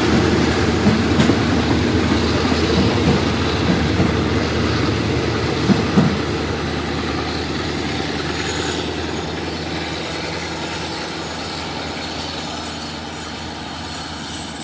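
Freight train wagons rolling past on the rails, wheels clattering with a few sharp knocks in the first six seconds. The noise then slowly fades, with thin high wheel squeals toward the end.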